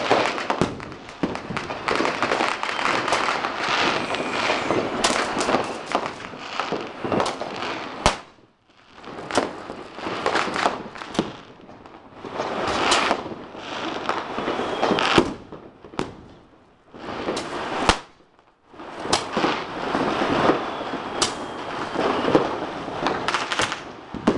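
Fireworks going off: a dense run of crackles and bangs with several sharp, louder single bangs among them. The crackling drops out briefly twice in the middle, each gap broken by a single sharp bang.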